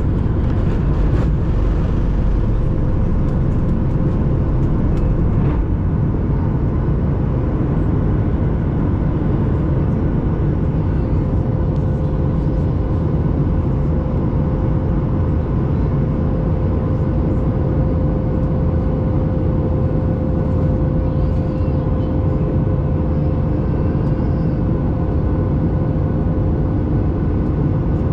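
A passenger jet's engines and airflow heard from inside the cabin during the climb after takeoff: a loud, steady rush with a constant whine above it.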